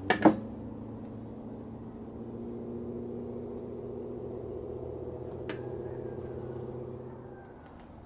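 Two quick, sharp glass clinks as a cobalt-blue glass cup is set down on a hard stone-chip tabletop, then a single lighter glass clink about five and a half seconds in.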